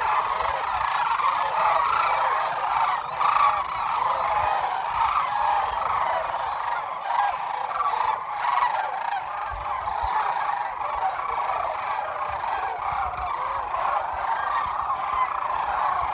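A large flock of sandhill cranes calling in flight as they come in to roost: a dense, continuous chorus of many overlapping calls.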